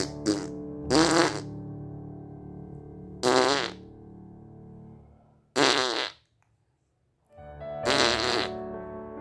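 Lips blown against a baby's cheek in loud buzzing raspberries, five short bursts, over background keyboard music that briefly cuts out about two-thirds of the way through.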